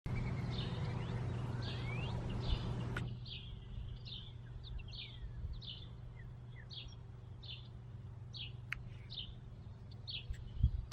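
Small songbird chirping repeatedly, short high chirps about one or two a second, over a steady low background hum.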